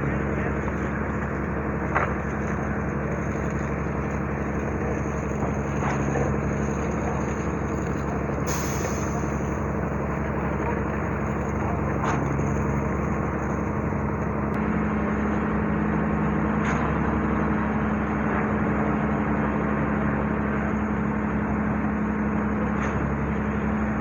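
Construction machinery engine running steadily, a constant low hum with a few faint clicks and knocks.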